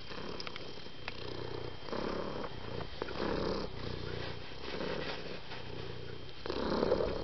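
Domestic cat purring, rising and falling with its breaths.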